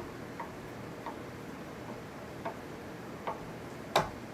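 Light, irregular clicks and knocks of kitchen utensils, about five taps, the loudest near the end, over a steady faint hiss.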